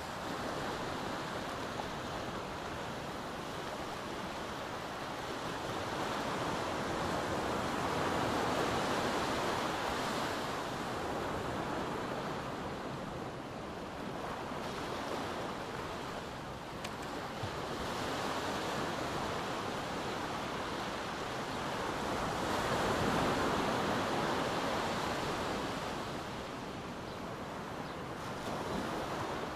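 Small waves breaking and washing up a sandy beach: a steady surf hiss that swells twice, about a third of the way in and again past the three-quarter mark.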